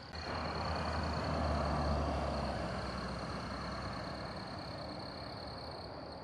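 A road vehicle driving past, its engine rumble and tyre noise rising to a peak about two seconds in and then slowly fading as it moves away.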